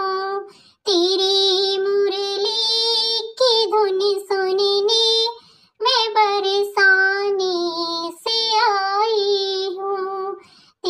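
A high singing voice, a child's or a woman's, holds long, wavering notes in phrases, with short breaks between them about a second in and again near the middle and end.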